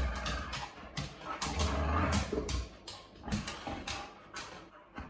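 Boxer dog making play noises while he mouths and noses at a person's hand: a run of short, breathy sounds with a low rumble now and then.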